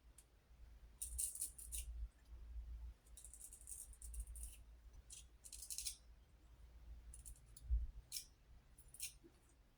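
Boar-bristle shaving brush working soap into lather in a bowl: irregular strokes of wet, hissy swishing and scratching, each lasting a fraction of a second to about a second.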